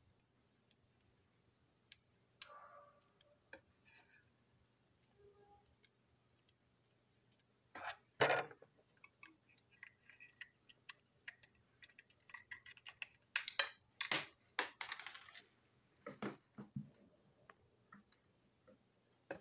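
Small clicks, taps and rattles of a toy train engine's plastic body shell and motor chassis being handled and fitted together on a tabletop. A louder knock comes about eight seconds in, and a busy run of clicking and rattling follows a few seconds later.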